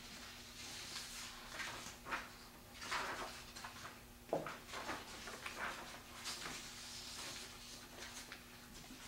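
Quiet room with a steady low hum, faint irregular scratching and rustling of pencils on paper worksheets, and a light knock about four seconds in.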